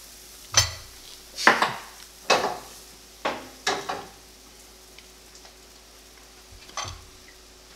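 Cooking utensils knocking and scraping against pans and dishes at a stove: a string of sharp clatters in the first four seconds and another near the end, with faint frying sizzle underneath.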